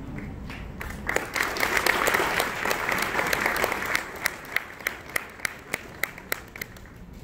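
Audience applause that swells about a second in, then thins after about four seconds into a few scattered single claps that die away.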